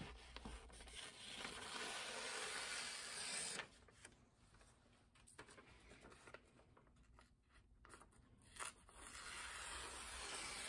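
A sheet of paper being sliced against the freshly sharpened edge of a brush axe blade, a sharpness test: a papery, hissing slicing sound in two stretches, a longer one at the start and another near the end, with a short click between them.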